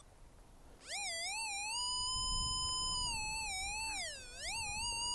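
XP Deus II metal detector sounding a continuous electronic tone that starts about a second in, wavering up and down in pitch, dipping deeply near the end and then holding steady. It is the signal from a big piece of iron just under the surface.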